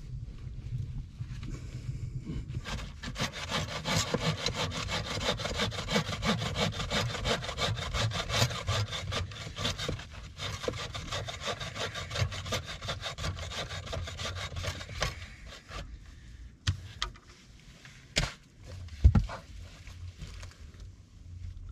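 Bow saw cutting through a log with quick, even back-and-forth strokes that run for about twelve seconds and then stop. A few separate knocks follow, the loudest a sharp one near the end.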